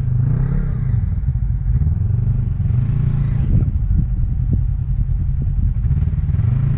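ATV engine idling close by, with a brief rise and fall in revs about three seconds in and a few light clicks after it.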